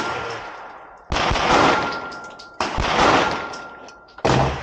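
Staccato P Duo pistol firing three shots about a second and a half apart, each followed by a long echoing tail.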